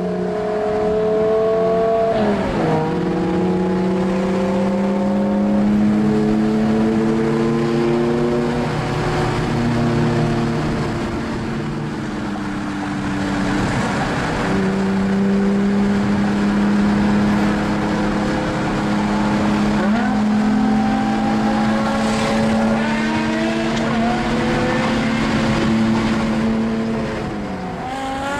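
BMW M6's 5.0-litre V10 engine and exhaust running at a mostly steady note, with the pitch climbing and then dropping at gear changes and a quick rev rise about twenty seconds in. Road and wind noise run under it.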